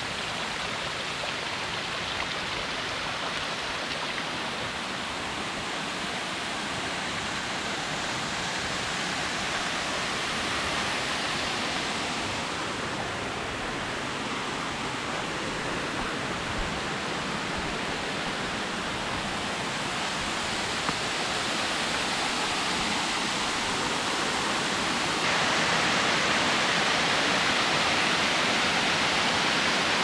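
Steady rush of Erawan Falls' tiered waterfall cascading over rock, louder near the end.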